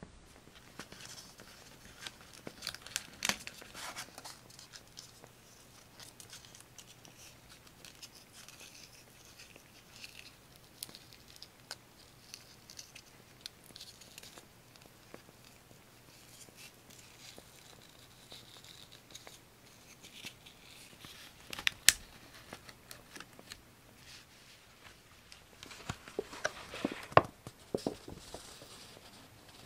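Scrapbook paper being handled, with rustling and tearing in short spells and a few sharp taps. The busiest spells come about three seconds in, around twenty-two seconds, and again near the end.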